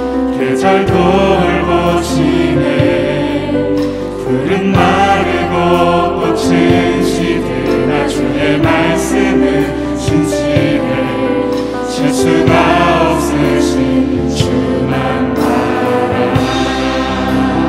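Live contemporary worship band with a group of singers singing together in Korean: acoustic guitar, keyboard and drum kit playing a steady beat under the voices.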